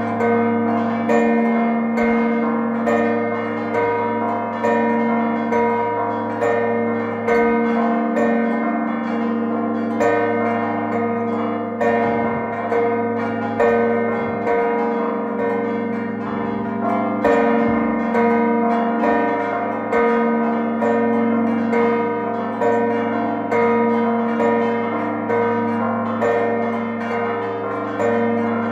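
Six church bells ringing the festive peal (mota) that marks the close of a Maltese feast. The strikes overlap in a steady repeating rhythm, a stronger stroke about once a second, and each tone rings on under the next.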